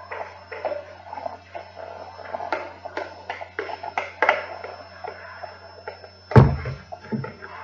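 Glue slime being mixed in a container: irregular sticky squelches and small clicks, with one loud thump about six seconds in, over a steady low hum.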